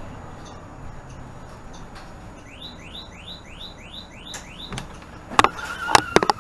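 A rapid series of about ten short rising electronic chirps, roughly four a second, from a 2018 Nova Bus LFS's door warning signal, then the bus's front doors opening with several loud clacks and a brief ringing tone near the end.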